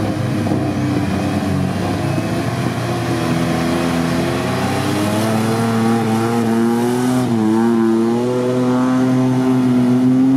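Off-road vehicle engines revving hard while driving through deep mud: the engine note climbs steadily from about three seconds in, drops briefly about seven seconds in, then holds high under load.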